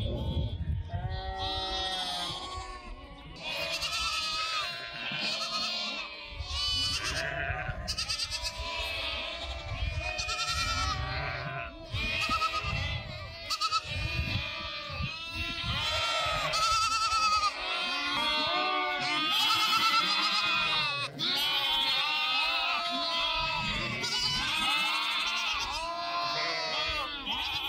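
A mixed flock of goats, kids, sheep and lambs bleating, many calls overlapping continuously.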